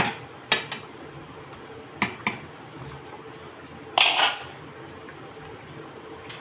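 A metal spatula clinks a few times against the metal pot of boiling soup, then a louder clatter about four seconds in; a faint steady bubbling runs underneath.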